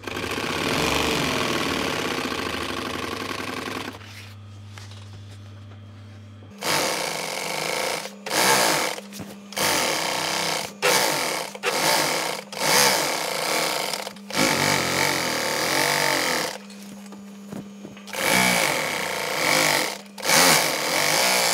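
Industrial sewing machine stitching a strip of Velcro and cloth onto a cushion base cloth: one long run of about four seconds, then a string of short stop-start bursts of a second or so each, with a low motor hum in the pauses.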